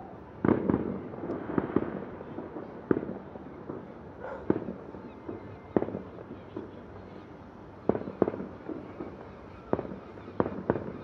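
A fireworks display heard from a distance: more than a dozen sharp bangs of shells bursting at irregular intervals, some in quick pairs, over a steady low rumble.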